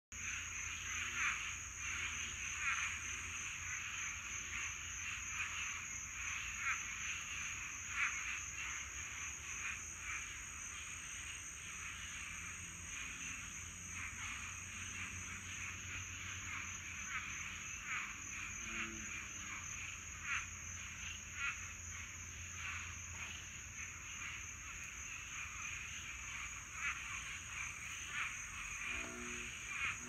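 Dense night chorus of many frogs calling at once: a breeding chorus of overlapping croaks, with a steady high-pitched drone underneath.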